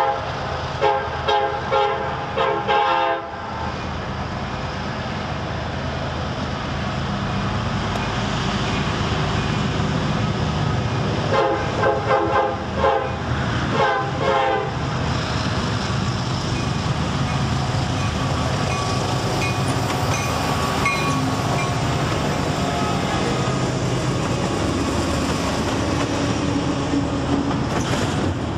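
CSX locomotive horn played in a series of short blasts during the first three seconds and again about eleven to fifteen seconds in. Between and after the blasts, the passing train rumbles steadily with wheels clattering on the rails.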